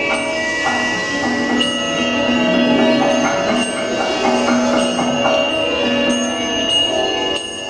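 A group of lyres and assorted other instruments played together, with many notes struck again and again over long ringing high tones.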